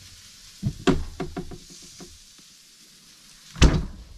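A few light knocks and clicks of kitchen items being handled, then one louder knock near the end, over a faint food sizzle.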